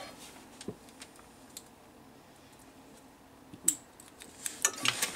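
Small plastic clicks and snaps of an oscilloscope probe being handled, its tip and hook-clip end worked on and off. A few light clicks come first, a sharper one about two-thirds of the way in, and a quick run of clicks near the end.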